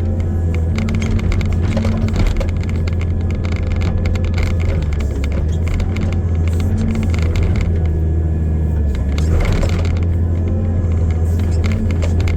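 Excavator's diesel engine running with a steady low drone while the machine works, with frequent clanks and rattles over it. A louder rush of noise comes about nine and a half seconds in.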